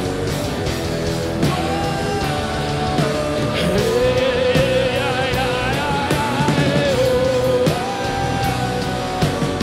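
Live rock band playing loud worship music on drums, electric guitar and keyboard, with long held melody notes, one wavering near the middle.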